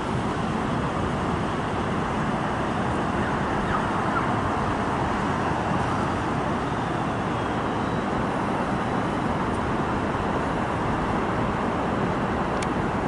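Steady city road-traffic noise, an even wash of sound with no single vehicle standing out.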